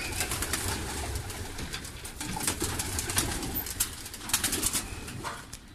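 Racing (homing) pigeons cooing steadily in their loft, with scattered sharp clicks and scuffs that are densest midway through.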